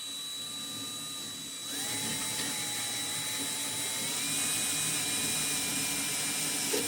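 Electric drill running steadily as it drills out the rivet holding a car door's lock actuator. About a second and a half in, its whine shifts in pitch and gets louder as the bit works into the rivet.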